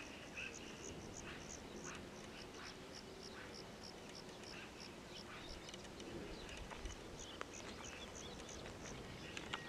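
Faint countryside ambience: a high chirp repeated evenly about three times a second, pausing around the middle and resuming, with scattered birdsong.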